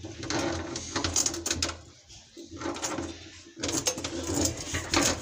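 A flexible drain-unclogging tool scraping and rattling inside a PVC sink drain pipe as it is pushed and worked through, in three bursts full of sharp clicks, clearing the pipe of grease and food residue.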